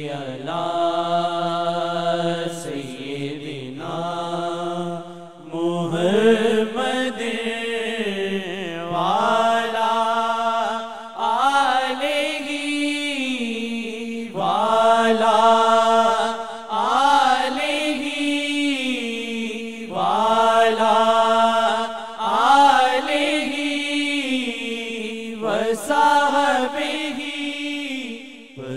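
A naat sung unaccompanied by a male voice: long held notes with sliding ornaments, in phrases of a few seconds each with short breaks between.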